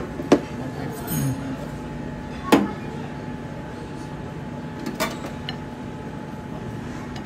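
Three sharp clinks and knocks of utensils against crockery, just after the start, about two and a half seconds in and about five seconds in, over a steady hum of kitchen equipment.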